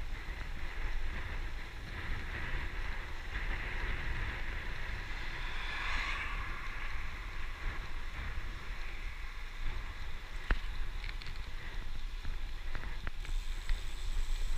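Wind buffeting a bike-mounted camera's microphone while riding, over a steady hiss of bicycle tyres on tarmac. The hiss swells briefly about six seconds in, and there is a single sharp click about ten seconds in.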